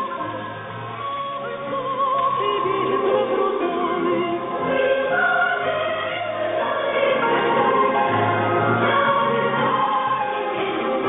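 Music with operatic or choral singing, received off-air through a shortwave receiver: a musical loop transmitted on 6828 kHz as part of a Russian military HF network.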